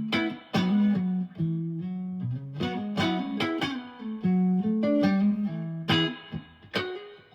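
Fender Jazzmaster electric guitar playing a run of picked chords and notes, each struck and left to ring, about ten strikes in all.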